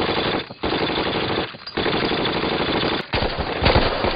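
Machine-gun fire in long rapid bursts, broken by three short pauses: about half a second in, a second and a half in, and three seconds in.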